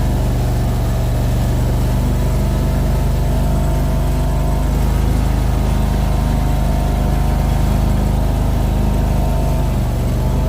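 Mini skid steer's engine running steadily, with small shifts in pitch a few times.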